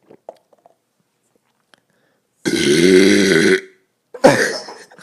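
A man's long, loud belch lasting about a second, its pitch rising and then falling, brought up by 150 mL of soda and swallowed air. A shorter sudden sound follows about half a second after it ends.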